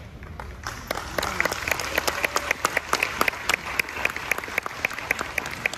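Audience applauding, the claps starting about a second in and quickly building to steady clapping.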